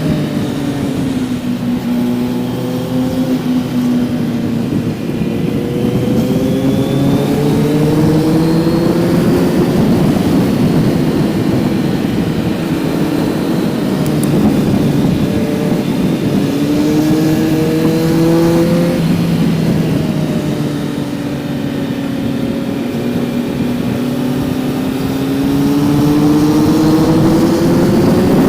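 Kawasaki Z900's inline-four engine under way, its pitch climbing for several seconds at a time and then dropping back as the bike accelerates and eases off, three times over.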